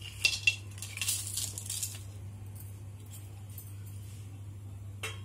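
Whole spices tipped from a steel plate into a hot kadai of ghee: a couple of sharp metal clinks about half a second in, then a brief hiss as the spices land in the hot fat, and one more clink near the end.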